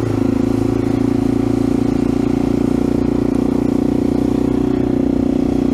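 AJP PR7's single-cylinder engine running steadily under light throttle as the motorcycle cruises along a dirt track, its pitch holding almost level.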